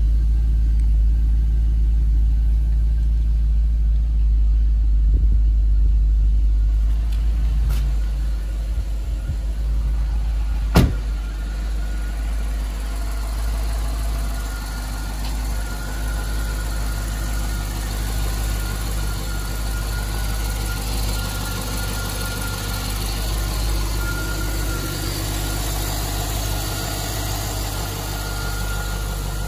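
A 6.2-litre LS3 V8 idling steadily. The sound turns brighter and closer partway through, as it is heard at the open engine bay, and a thin steady high whine runs with the idle from about fourteen seconds in. There is one sharp click about eleven seconds in.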